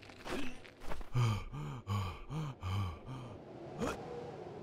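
A man's voice straining with effort: a short gasp, then a quick run of about six short grunts, each rising and falling in pitch.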